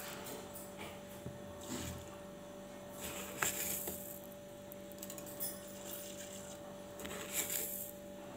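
A metal spoon clinking and scraping against a stainless steel saucepan as sugar is spooned into tea water, in several short bursts with one sharp clink about three and a half seconds in, over a faint steady hum.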